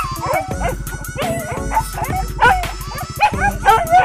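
Leashed hunting dogs yelping, whining and barking in short, rapid calls, with background music over them.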